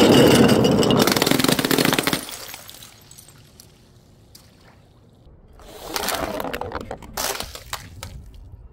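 Glass breaking and crunching: one long, loud crash of scattering pieces lasting about two seconds, then two shorter bursts of breaking about six and seven seconds in.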